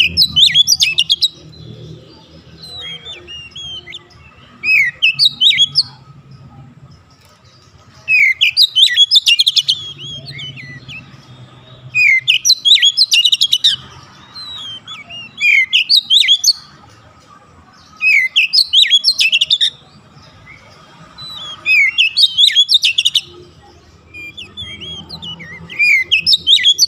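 Oriental magpie-robin singing vigorously: loud, varied phrases of whistles, slurred notes and rapid sharp notes, each lasting a second or two and repeated every few seconds.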